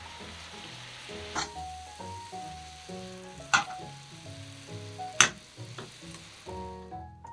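Chicken tsukune patties sizzling in a frying pan as their sauce reduces, with a few sharp clinks of a metal spatula against the pan as they are turned. The sizzling cuts off near the end.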